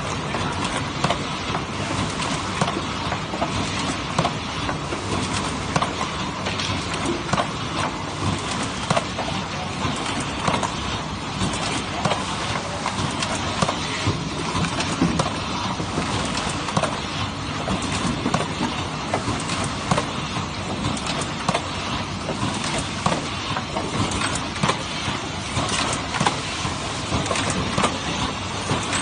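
Automatic cartoning machine running at 40 cycles a minute: a steady mechanical clatter with frequent sharp clicks and knocks from its moving parts.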